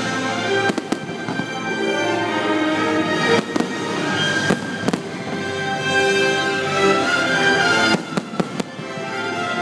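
Aerial fireworks bursting: several sharp bangs and crackles, with a quick cluster of bangs near the end, over a steady music soundtrack.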